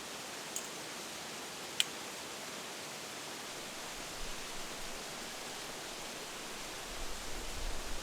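Steady rushing of a river flowing close by. Two short sharp ticks about half a second and about two seconds in, and a soft low rumble near the end.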